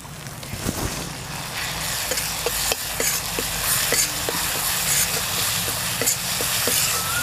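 Spiced onion-tomato masala sizzling in hot oil in an iron kadhai while a steel ladle stirs and scrapes it, frying the freshly added ground spices. The sizzle builds about half a second in, with repeated short clicks of the ladle against the pan.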